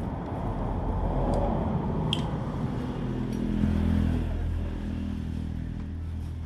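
An engine running steadily, its sound growing louder toward the middle and easing off again, with a low steady hum.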